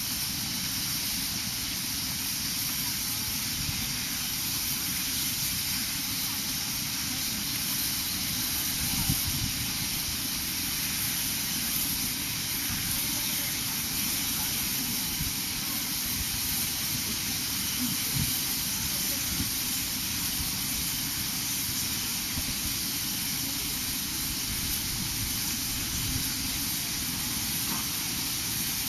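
Steam locomotives D51 200 and C61 2 standing in steam, hissing steadily with a low rumble underneath. There is no exhaust chuffing: the engines are not working.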